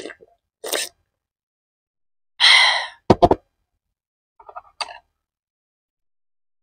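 Gulps of water being swallowed from a glass mug, then a loud breathy 'ahh' exhale after drinking. Right after it come two sharp clunks as the mug is set down on the table, and a few faint mouth clicks near the end.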